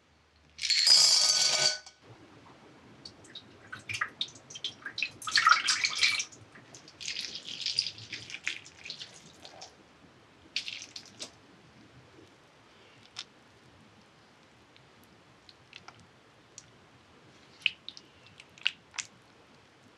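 Dark chocolate pieces poured from a small bowl into a ceramic jug, a loud rattling patter lasting about a second. Then softer kitchen sounds follow: short splashy pours of milk and scattered clicks, with a few sharp taps of a silicone spatula against the ceramic near the end.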